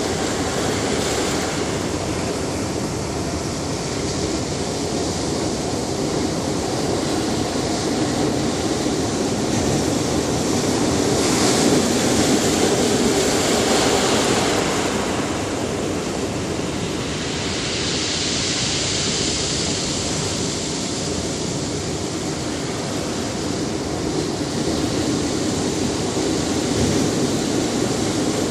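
Ocean surf on a beach: waves washing in a continuous hiss and rumble. The surf swells louder about twelve seconds in and again about eighteen seconds in, as waves break.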